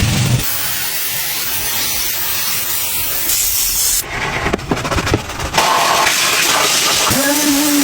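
Pressure washer spraying, a loud steady hiss of the water jet that changes abruptly twice near the middle, with a few knocks. A steady hum comes in near the end.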